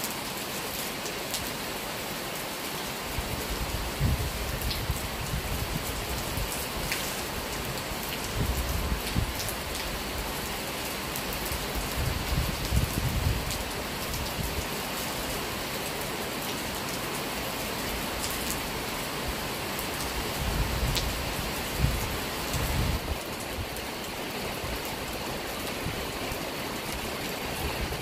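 Steady rain falling on trees and plants, an even hiss, with a few short low rumbles coming and going.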